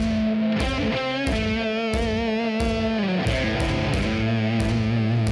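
Electric guitar music with held notes over a steady beat.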